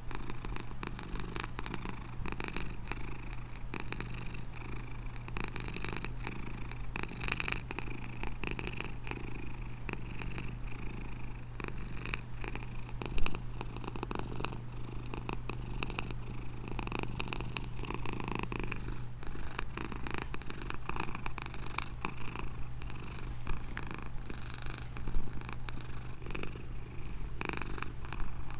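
Domestic cat purring steadily: a continuous low rumble with a fast, even pulsing. Two brief louder sounds stand out, one near the middle and one near the end.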